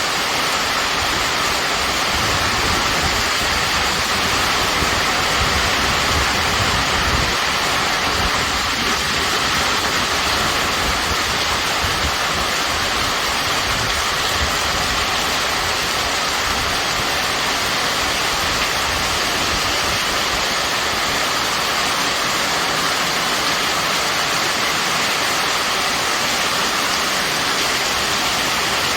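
Heavy rain pouring down in a steady, dense hiss, with a low rumble underneath during roughly the first ten seconds.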